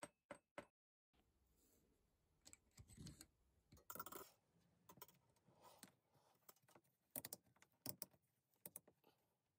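Three quick hammer taps on silver wire resting on a steel bench block, then after a short gap, faint scattered clicks and rustles as a cordless drill and the silver wire are handled on a wooden bench.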